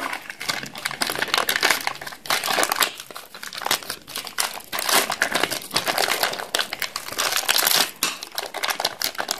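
Clear plastic packet crinkling and crackling without a break as hands unwrap a metal soft-close cabinet hinge from it.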